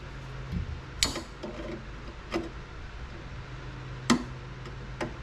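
Sharp metallic clicks and taps of small parts and hand tools being handled while fitting transmission linkage and clips, about five in all with the loudest about four seconds in, over a steady low hum.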